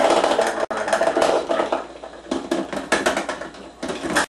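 Kitchen clatter: bowls, measuring cups and utensils being knocked, shifted and set down in a rapid, irregular string of knocks and rattles, cutting off abruptly near the end.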